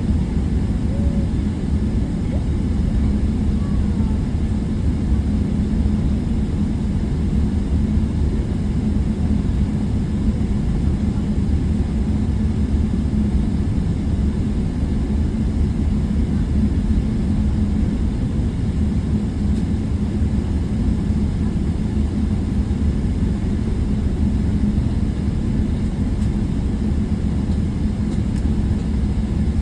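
Steady low rumble of a jet airliner's engines and airflow heard from inside the passenger cabin, with an even hum underneath and no change in pitch or level.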